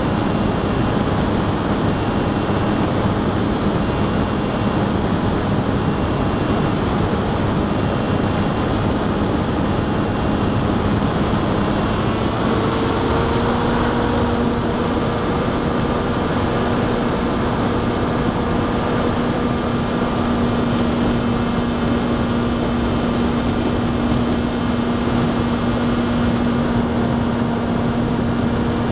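Electric motor and propeller of an FPV model aircraft running steadily under heavy wind rush, heard from onboard. The motor tone steps up in pitch about twelve seconds in as the throttle rises. A high beep, about a second long, repeats every two seconds until then.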